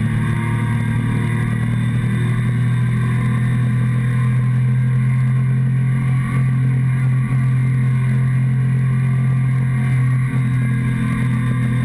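Motorcycle engine running at a steady speed while riding, heard close up from a camera mounted on the fuel tank, with brief small dips in level a few times.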